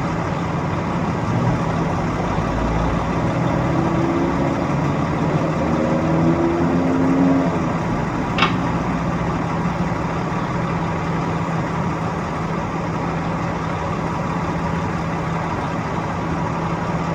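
Heavy construction machinery engine running steadily, with a short higher whine in the middle and a single sharp clank about eight and a half seconds in.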